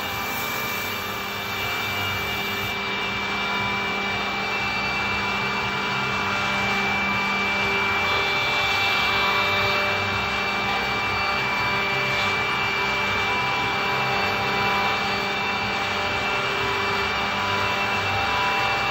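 Andreoni Standard 12 multi-spindle copy-milling (pantograph) machine running, its router bits cutting into wooden blocks: a steady whine from the spindles over the rasp of the cutters in the wood.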